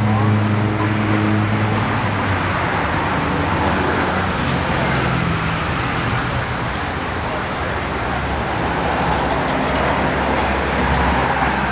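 Steady street traffic noise, with the low hum of an engine running close by for the first couple of seconds and again near the end.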